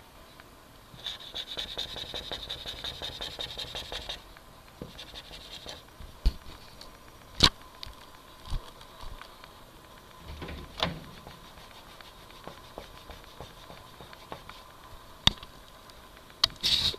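Dry-erase marker tip scratching and squeaking rapidly across a whiteboard for about three seconds, starting about a second in. Then a few sharp clicks and taps, and another short scratchy burst near the end.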